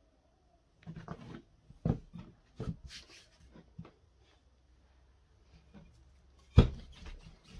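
Rolling pin rolling out pastry dough on a floured work surface: scattered knocks and rubbing strokes starting about a second in, with the loudest knock near the end.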